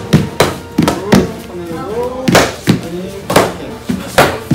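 Kicks smacking into hand-held taekwondo paddle targets: about ten sharp slaps in quick, uneven succession, with a voice shouting briefly in the middle.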